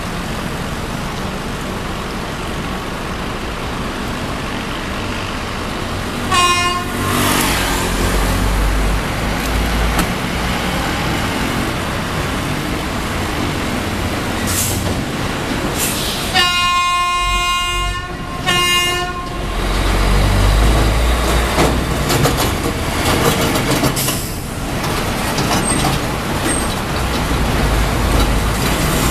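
Road traffic with trucks and motorcycles passing, their engines rumbling and swelling as they go by. An Alsthom diesel locomotive's horn sounds three times: a short blast about six seconds in, a long blast at about sixteen seconds, and a short one right after.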